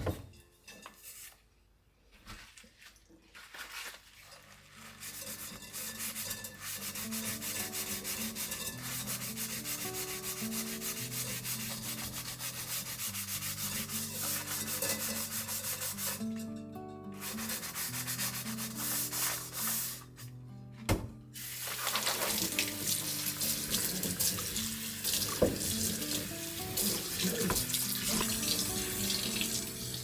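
Scrubbing and rinsing under running water at a sink, with a few light clatters, stopping briefly twice. Soft background music with a steady pattern of notes underneath.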